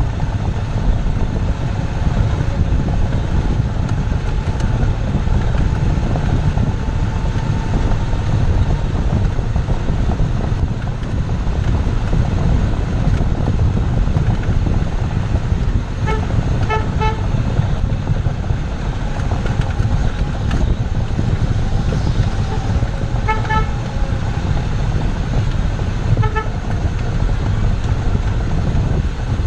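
A car on the move, with a steady low rumble of road and wind noise. Three short runs of high-pitched beeps come in the second half.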